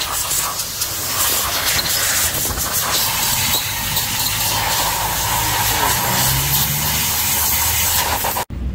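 Steady, loud hiss of a pressurised hose nozzle spraying into an aluminium intake manifold section to clean out carbon deposits. It cuts off suddenly near the end.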